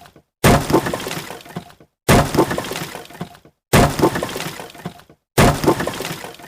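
Wood breaking: a sudden crack followed by a splintering crackle that dies away within about a second. The same break repeats four times at even spacing, about every 1.6 seconds.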